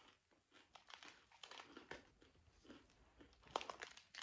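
Faint crinkling of a plastic cereal bag being handled, mixed with crunchy chewing. The sharpest crinkles come a little after three and a half seconds in.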